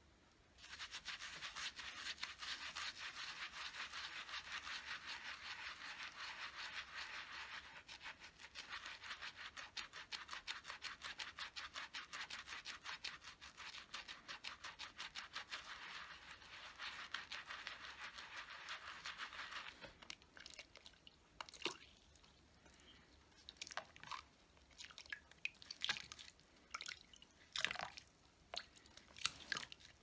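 A makeup brush scrubbed quickly back and forth over the textured bumps of a wet silicone brush-cleaning pad, giving a fast, steady, rhythmic scrubbing with a short break about a quarter of the way through. The scrubbing stops about two-thirds of the way in, and scattered drips and small splashes follow as the brush is worked in soapy water.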